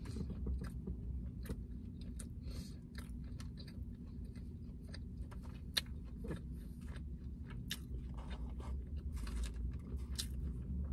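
A person chewing a mouthful of falafel wrapped in pita, with small wet mouth clicks scattered through it, over a steady low hum.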